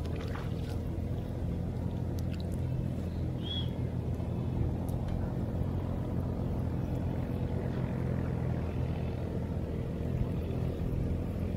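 Steady low drone of an engine running at an even speed, with a few faint clicks over it.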